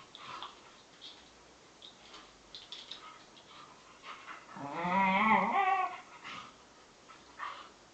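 Bedlington terrier making one drawn-out, wavering play vocalisation, a whine-like grumble lasting about a second and a half in the middle, amid faint scuffling ticks of dogs at play.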